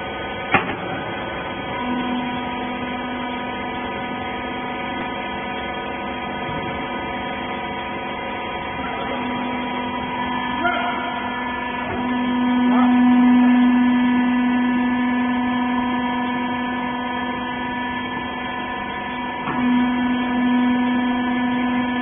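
Hydraulic pump motor of a small horizontal rag baler running with a steady hum. A click comes about half a second in, the hum starts about two seconds in, and it grows louder for a few seconds in the middle.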